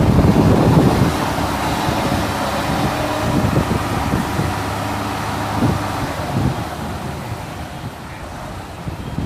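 Road roller engine running steadily with a low hum, loudest in the first second and quieter over the last couple of seconds.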